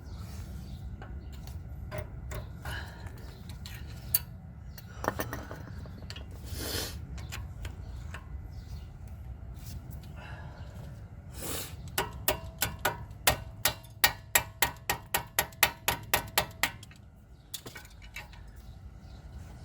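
Metal clinks and scrapes as brake pads are pried out of a car's caliper bracket with a flat screwdriver. Scattered single clicks, then past the middle a quick run of ringing metallic taps, about three a second, for around five seconds.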